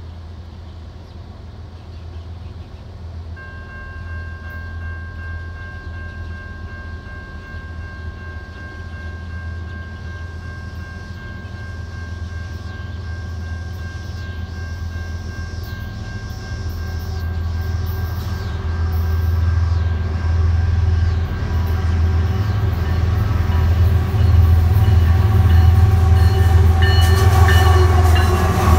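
Freight train led by a Canadian Pacific GE ES44AC diesel locomotive approaching and passing. The low engine rumble grows steadily louder, and a steady horn chord sounds from a few seconds in, dropping in pitch as the locomotives go by near the end.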